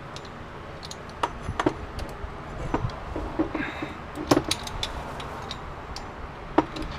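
Dog bone wrench clinking against the brass nut of a faucet fitting as it is worked loose, with a handful of separate sharp metallic clinks.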